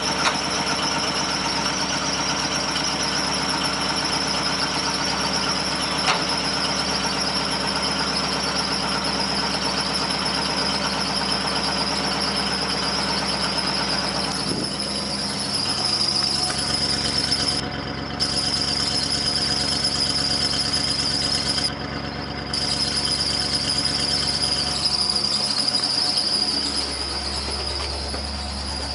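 A 1976 Chevy Van 30's GM 350 V8 idling, heard at the exhaust, with a steady high-pitched whine over the engine sound throughout.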